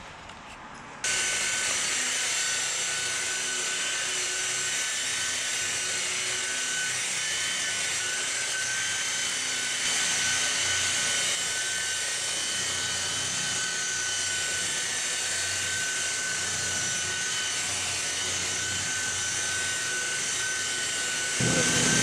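Corded electric polisher running steadily with its buffing pad against a baler's painted steel panel: a constant motor whine over the hiss of the pad on the paint, starting about a second in. Music comes in near the end.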